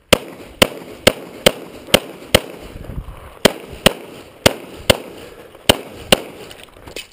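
Pistol shots from a .40 S&W EAA/Tanfoglio Witness Elite Match: about a dozen rapid shots fired as double-taps, pairs roughly half a second apart, with a longer pause near the middle.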